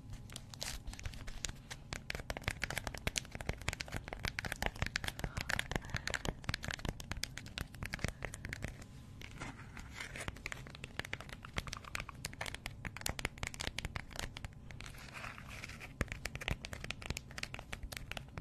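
Crinkly round packaging squeezed and rubbed by fingers close to a microphone, making a dense, steady run of crackles and crinkles.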